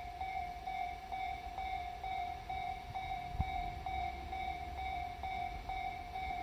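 Japanese level-crossing warning bell ringing steadily, about two strikes a second, over a low rumble. One sharp knock about halfway through.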